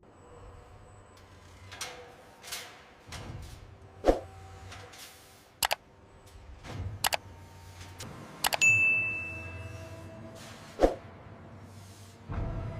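Layered sound effects over a low steady hum: a series of sharp metallic clanks and knocks, a few whooshes, and a short ringing ding about two-thirds of the way through.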